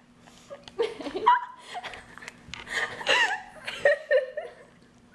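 People laughing and giggling in short bursts, with a little speech mixed in.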